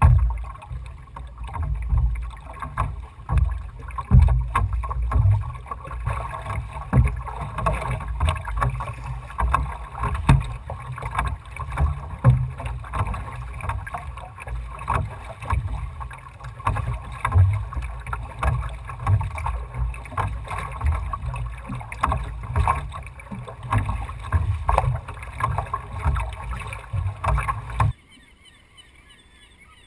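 A wooden Northeaster Dory being rowed: water rushing and splashing along the hull and oar blades with a gusty low rumble of wind on the microphone, swelling and easing every couple of seconds, with scattered short knocks. Near the end it drops suddenly to a much quieter wash of water.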